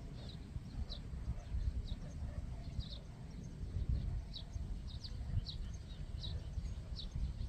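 A small bird chirping short, high notes about once or twice a second, over a low rumble of wind on the microphone.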